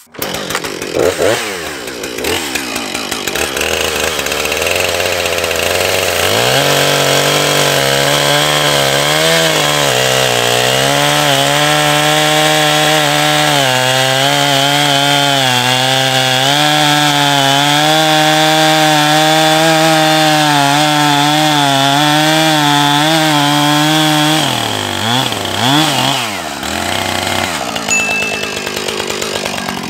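Husqvarna two-stroke gas chainsaw revving to full throttle and cutting through a thick log, its pitch wavering as the chain bogs under load and recovers. About 24 seconds in it drops off as the cut finishes, followed by a few short revs.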